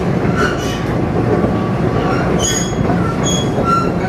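Interior running noise of a TRA EMU500 electric multiple unit at speed: a steady rumble of wheels on the rails, heard inside the passenger car. Short high squeals come a few times in the second half.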